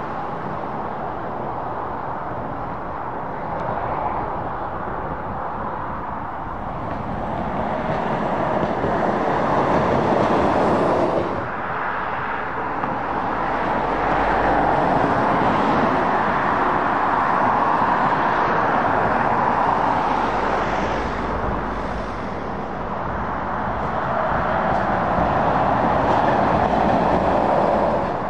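Traffic on a dual-carriageway trunk road: the tyre noise and engines of passing lorries and cars. It swells and eases several times as vehicles approach and go by, with a sudden dip about eleven seconds in.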